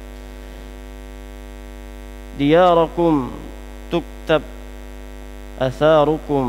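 A man reciting Arabic hadith text in a melodic chant through a microphone, in two phrases of about a second each, one about two and a half seconds in and one near the end, with two short syllables between. A steady electrical mains hum runs under the voice.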